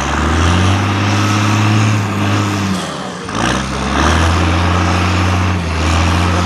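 MAN 6x6 trial truck's diesel engine running hard under load as the truck crawls over a rock obstacle. It is held at high revs for a few seconds, eases off briefly about three seconds in, then pulls hard again.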